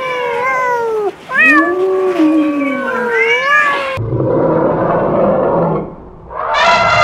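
Kittens mewing, several thin, wavering cries overlapping, for about four seconds. The sound then cuts abruptly to a rough, noisy animal sound, and near the end a long, loud call begins.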